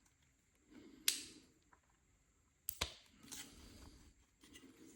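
3D-printed ABS headband parts being flexed and worked at their joints: soft rubbing in short stretches with two sharp plastic clicks, about a second in and near the three-second mark. There is no squeak, the squeak being what PETG-printed parts give.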